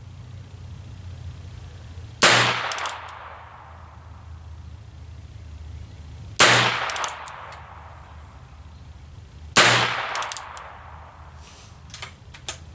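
Three single shots from a .22 LR revolver, fired slowly about three to four seconds apart, each with a short fading tail and a few fainter cracks right after. A few light clicks come near the end.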